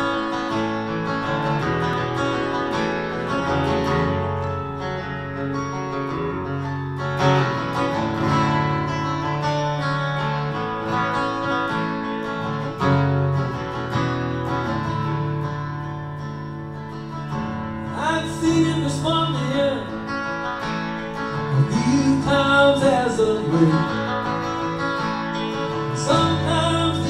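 Acoustic guitar strummed through the opening of a song, played live. About eighteen seconds in, a second melody line that slides and wavers in pitch comes in above the chords.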